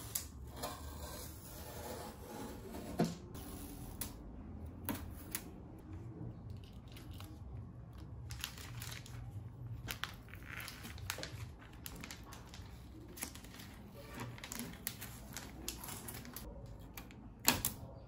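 Protective tape and clear plastic film being peeled off a new Brother DCP-T420W inkjet printer: plastic crinkling and rustling with many small clicks and taps of the printer's plastic casing. A sharp click near the end as the scanner lid is shut.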